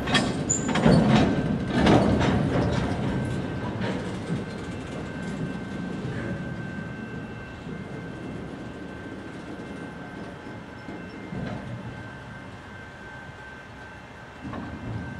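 Freight train cars rolling slowly past, with a cluster of loud clanks and bangs in the first two or three seconds, then a steady rumble that slowly fades.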